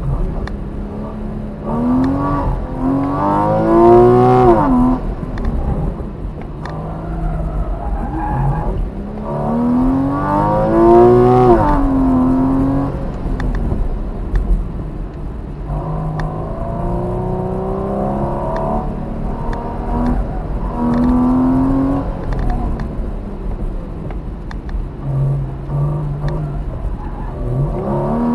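Porsche 981 Cayman's mid-mounted flat-six engine heard from inside the cabin under hard driving. It revs up in a rising whine several times and drops back in between, as the car accelerates and then lifts or brakes.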